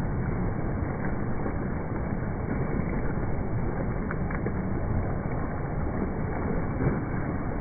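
Water splashing from a swimmer's flutter kick on a kickboard, steady and unbroken, over the low noise of an indoor pool hall.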